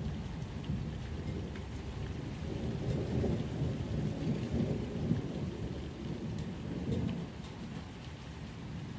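Steady rain with scattered drop ticks over a low rolling rumble of thunder, which swells in the middle and eases off near the end.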